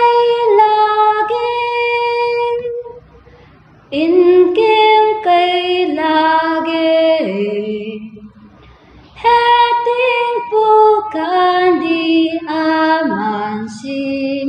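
A young woman singing solo and unaccompanied, holding long notes in three phrases with short breaths between them.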